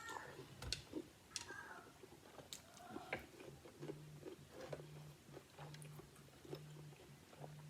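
Faint close-miked chewing of a mouthful of sausage, rice and cucumber, with scattered wet mouth smacks and clicks.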